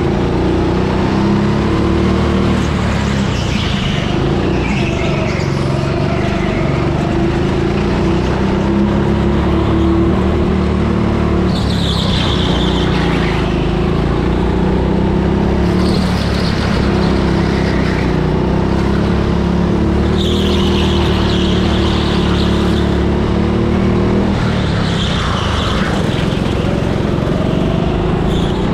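Go-kart motor running hard on a lap, heard onboard as a steady drone whose pitch drops briefly a few times as the kart eases off for corners.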